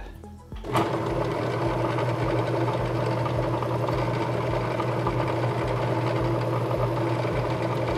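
Drill press switched on about a second in, its motor and spindle then running steadily with a low hum while spinning a narrowed countersink.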